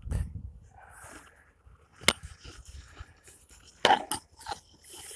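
Well bailer on its rope knocking and clinking as it is hauled up out of the water: one sharp click about two seconds in, then two or three more just before four seconds in.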